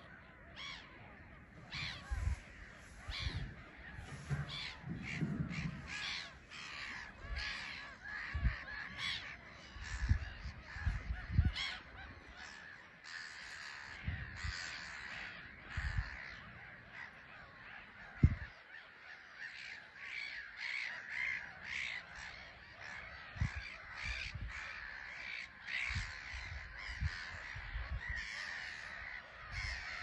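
A colony of black-headed gulls calling without pause, many calls overlapping. Occasional low thumps, the loudest about two-thirds of the way through.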